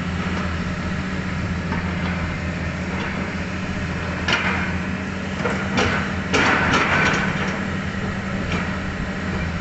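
Hitachi Zaxis 200-5G excavator's diesel engine running steadily under load, with a cluster of metallic clanks and scrapes from the bucket working the dirt between about four and seven and a half seconds in.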